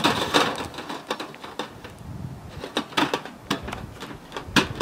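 Sheet-metal storm collar band being worked around a metal chimney pipe as its tab is pushed through the slot and pulled tight. A short scraping rasp at the start, then scattered sharp metallic clicks, the loudest just before the end.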